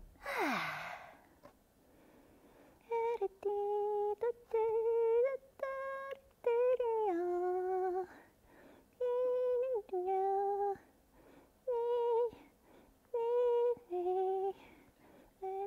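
A woman's voice humming a wordless tune in short held notes with small gaps and slight pitch bends. It is preceded just after the start by a brief breathy sound that slides down in pitch.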